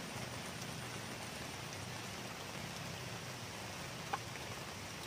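Steady hiss of light rain falling on the reservoir water, with one faint click about four seconds in.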